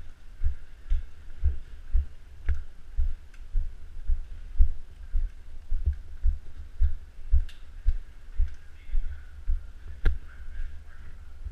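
Walking footsteps picked up by a worn GoPro camera as dull, low thuds about two a second, with a few sharp clicks among them.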